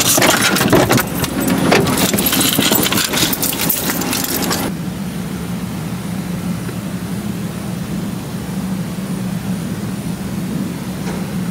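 Car keys jangling and rattling after the car is switched off. The jangling stops suddenly a little over four seconds in, leaving a steady low hum.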